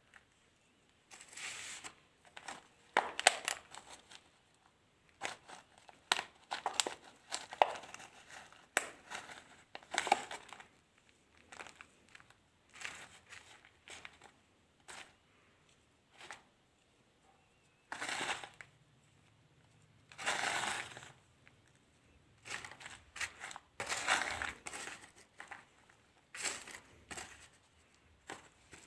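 Colored sand being crumbled, in irregular crunching bursts with short pauses between them and a few longer crunches.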